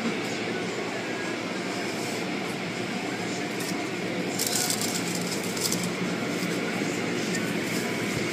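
Automatic car wash machinery running with a steady rumble, and a spell of high hissing about four and a half seconds in that lasts just over a second.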